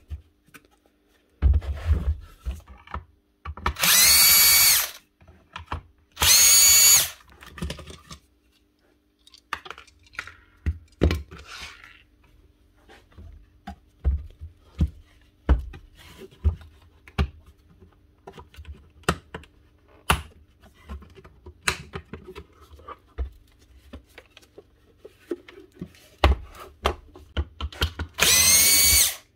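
Bosch cordless drill/driver running in three short whining bursts of about a second each, backing screws out of the vacuum's plastic housing. In between come scattered clicks and knocks of the plastic parts being handled.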